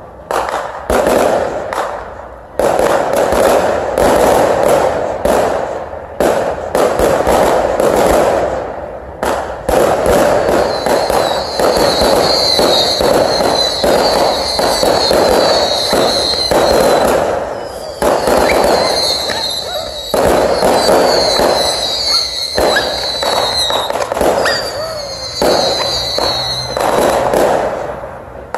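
Aerial fireworks going off in a rapid, dense barrage of bangs and booms. From about ten seconds in, a high hiss comes and goes over the bangs.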